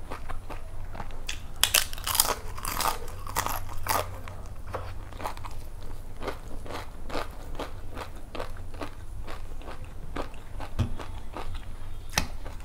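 Close-miked eating sounds: a papad (papadum) crunched between the teeth, loudest in a cluster of crackles from about one and a half to four seconds in, then continuing chewing with many small crisp clicks.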